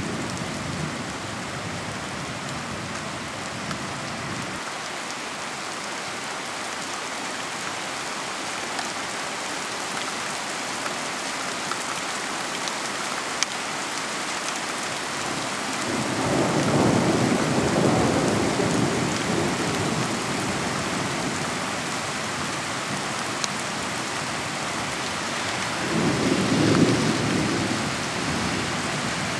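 Steady rain falling, with a long roll of thunder about halfway through and a shorter low rumble near the end.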